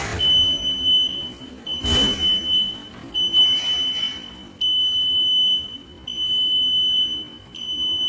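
Buzzer of a home-made reed-switch door alarm sounding a steady high tone in on-off beeps of about a second each, set off by the door being opened. A thump about two seconds in.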